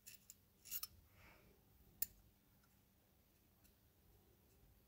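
Small metallic clicks of steel pliers on a bent steel wire: a few faint ticks at the start, a short cluster just under a second in and one sharp click about two seconds in, otherwise near silence.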